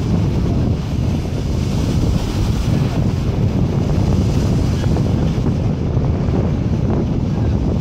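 Steady wind buffeting the microphone over the wash of choppy sea water.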